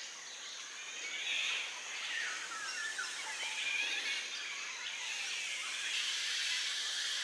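Black-naped orioles calling from scattered points, a handful of short gliding calls, over a steady high insect hiss. The calls are territorial calls warning other birds off.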